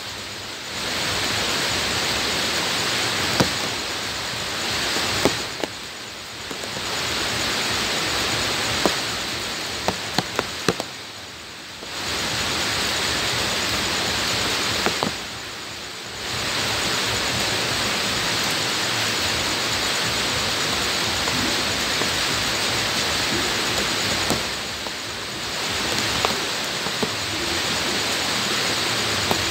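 Rain falling steadily on bare ground, a dense even hiss with occasional sharp ticks of drops landing close by. The hiss drops away briefly about five times.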